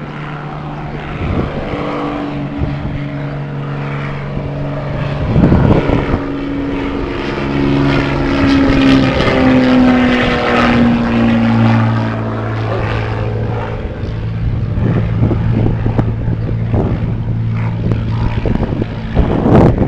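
Propeller engine of a low-flying crop-dusting airplane passing overhead: it grows louder toward the middle, its pitch drops as it goes by, and it then runs on steadily at a lower pitch. A brief loud rush of noise comes near the end.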